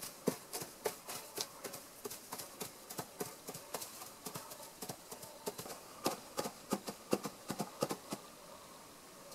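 Foley hoofbeats: props struck by hand in quick, irregular knocks to mimic galloping hoofed animals, ending about a second before the close.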